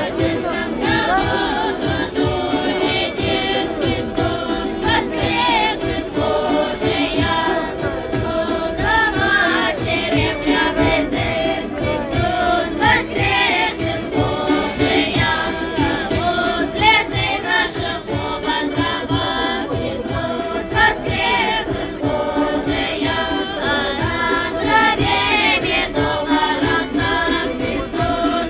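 A choir of many voices singing without pause.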